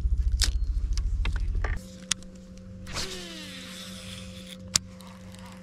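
Boat motor: a low, rapidly pulsing motor cuts off about two seconds in, leaving a steady electric hum. A sharp click comes just after the cut-off and again near the end, with a brief falling whoosh about three seconds in.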